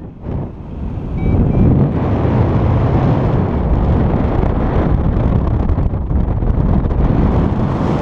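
Loud wind buffeting the microphone of a paraglider in flight: a dense, low rushing noise that dips for a moment at the start, then holds steady.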